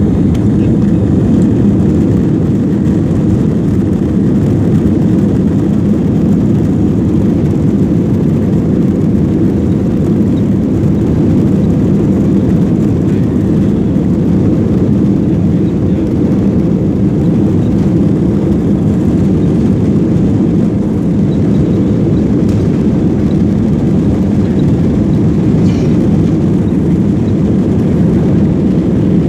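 Aircraft noise: a loud, steady low roar that holds the same level throughout, with no rise or fall.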